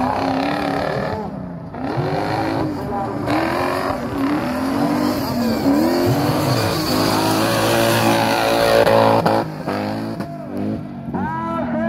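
Offroad racing buggy's engine revving up and down over and over as it slides through a dirt course, then held high and climbing in pitch under hard acceleration before it breaks off sharply.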